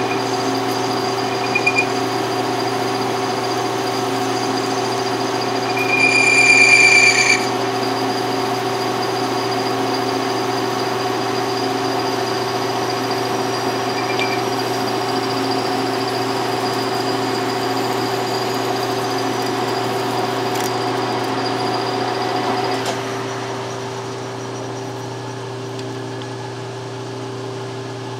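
Metal lathe running steadily with a parting tool cutting off the workpiece; about six seconds in the tool squeals for a second or so with a high ringing tone. Near the end of the cut there is a knock and the lathe's running sound drops away as the spindle is stopped, leaving a lower hum.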